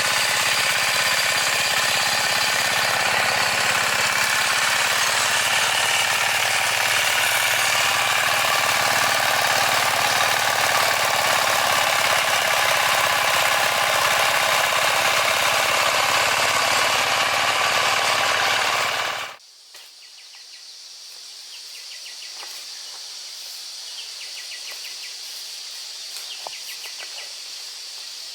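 Engine of a farm machine running steadily, then cutting off abruptly about 19 seconds in. After that there is a faint outdoor background with small ticks.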